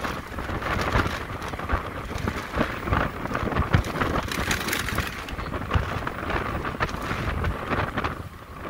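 Wind buffeting the microphone of a rider on a moving electric motorcycle: an uneven rumbling rush with frequent irregular thumps.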